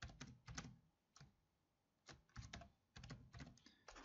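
Faint computer keyboard typing: a quick run of keystrokes, a pause of about a second, then two more quick runs.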